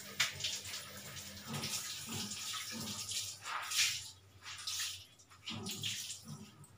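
Water running from a kitchen tap and splashing into a sink, surging and easing for about five seconds, then dying away.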